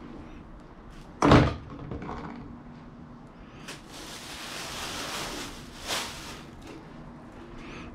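A single sharp thump about a second in, then a thin plastic grocery bag rustling and crinkling for about two seconds as hands push fish scraps down into it.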